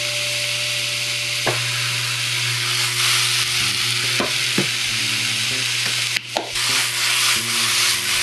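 Sliced mushrooms and onions sizzling steadily in hot olive oil in a saucepan as they are stirred, with a few sharp knocks of the utensil against the pan.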